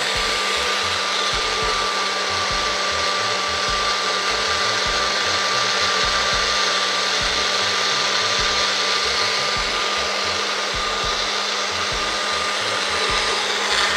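Compact bullet-style personal blender running steadily, its cup pressed down onto the motor base, blending watermelon cubes with ice and liquor. The motor gives an even hum with a steady whine throughout.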